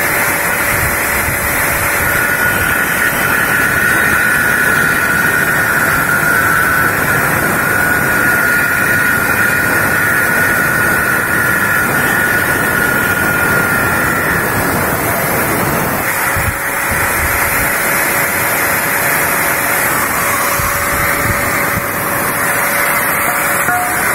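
Electric angle grinder with a small cutting disc running and cutting into a steel flat bar, a loud steady whine. A higher tone while the disc bites drops away after about fourteen seconds.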